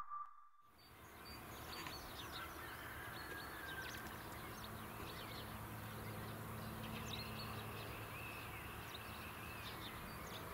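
Small birds chirping and whistling over faint open-air background noise, with a low steady hum from the distant Airbus A319's CFM56 jet engines running at low power on the runway.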